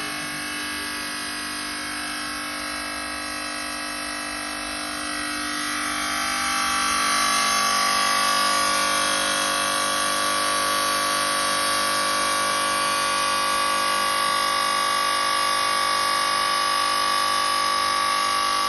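Side-cutting machine running with a steady mechanical whine made of several steady tones. About six seconds in it grows louder and a higher, stronger whine comes up and holds steady.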